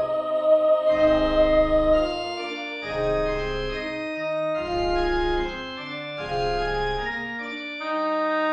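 Church organ playing slow sustained chords, with a deep bass note coming in and dropping out four times beneath them.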